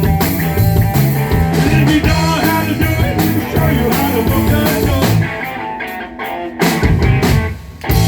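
Rock band playing, with drums and guitar; the music drops back twice, about five seconds in and again near the end.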